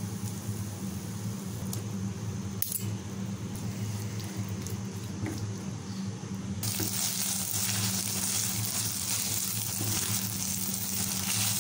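Chicken pieces sizzling in a non-stick frying pan as cream cheese is stirred in, with a couple of clicks early on. A steady low hum runs underneath, and the sizzling grows louder about halfway through.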